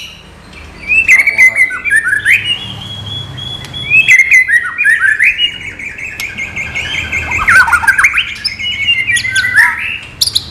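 White-rumped shama (murai batu) singing a long, varied song of loud whistled phrases, quick chattering notes and sweeping slurs, after a brief pause at the start.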